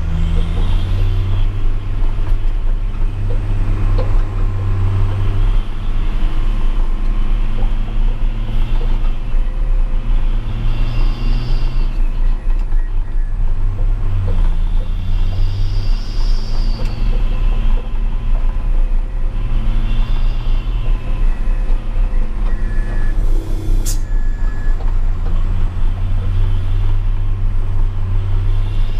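Hino 500 truck's diesel engine running under way, a steady low drone through its Sulawesi-style 'cung' exhaust. The engine note drops briefly about halfway through, and there is one short sharp sound near the end.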